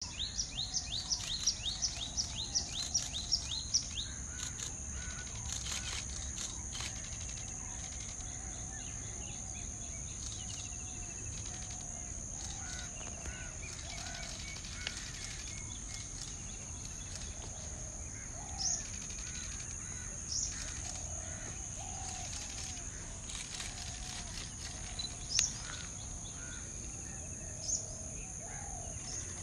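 Birds calling over a steady high-pitched insect drone: a quick run of falling chirps, about four a second, in the first four seconds, then scattered short calls and a few rising whistles.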